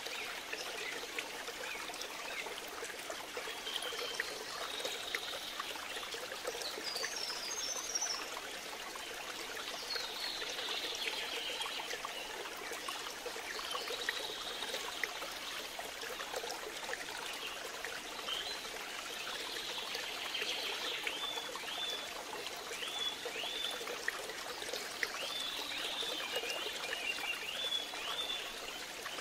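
Steady sound of flowing water like a stream, with high chirping calls scattered over it and a quick run of short falling chirps near the end.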